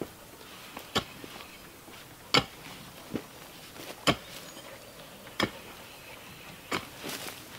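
A short-handled digging tool chopping into rooty soil, with a sharp strike about every one and a half seconds and a couple of quicker light hits near the end.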